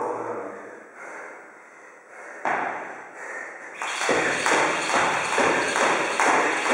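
Jump rope whipping round and slapping the floor as the feet land, a steady rhythm of about three strikes a second that starts about four seconds in. Before it there is breathing and a single knock.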